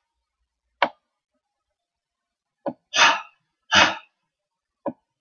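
A man forcing air out from his throat in two short, breathy, voiceless 'h' sounds, like a soft cough: the Swedish H sound. Three very short clicks fall around them.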